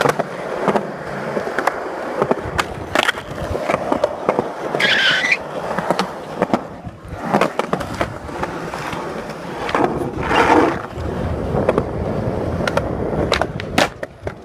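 Skateboard wheels rolling on asphalt with a steady rough rumble, broken by sharp clicks and knocks from the board and wheels. There is a brief squeal about five seconds in, and a run of quick clicks near the end.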